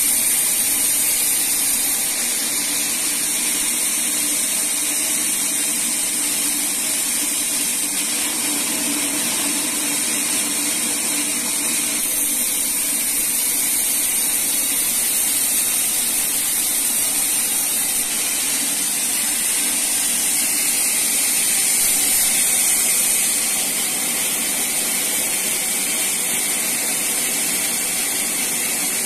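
Band sawmill blade cutting lengthwise through a teak log: a steady, loud hiss of the blade in the wood over the machine's running hum. The sound steps down a little about two-thirds of the way through.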